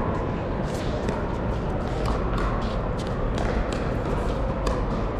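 Pickleball paddles striking a hard plastic ball in a rally at the net: several sharp pops, roughly a second apart. Beneath them runs the steady din of a large echoing hall, with distant voices and play from other courts.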